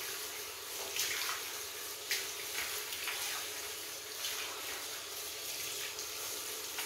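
Water running steadily from a handheld shower head in a tiled shower, with a few brief louder splashes.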